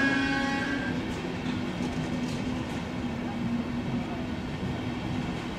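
Intercity train coaches rolling past with a steady rumble and hum. A train horn sounds and stops about a second in.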